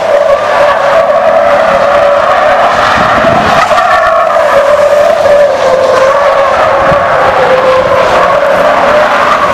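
Pickup truck tires squealing loudly and without a break as the truck spins donuts on asphalt, the squeal's pitch wavering slightly.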